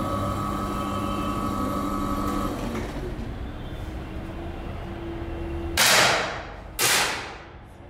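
Two air pistol shots about a second apart near the end, each a sharp pop trailing off in a hiss, over a steady background hum.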